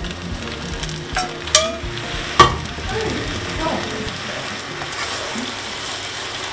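Spaghetti being stirred in a frying pan of olive oil and pasta water, sizzling steadily. There are a few light clicks about a second and a half in, then one sharp knock about two and a half seconds in.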